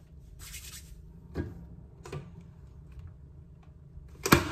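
Scattered clicks and knocks of a hand handling the plastic shelves and contents of an open fridge, with one sharp, loud plastic clack near the end, over a low steady hum.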